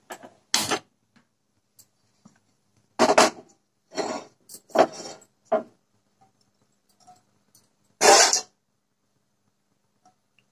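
Kitchen handling noises around a pan on a gas stove: a few short scraping and clattering bursts, the loudest about eight seconds in, with quiet between them.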